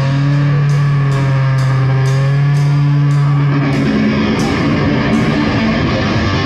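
Loud live rock music: an electric guitar holds a long low note while the drum kit crashes its cymbals at a steady pace. The held note gives way about four seconds in, and the playing goes on.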